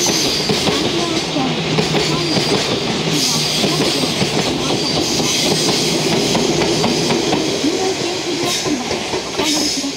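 Container freight wagons roll past with the clickety-clack of their wheels over rail joints. Near the end, the EF210 electric banking locomotive at the rear of the train passes.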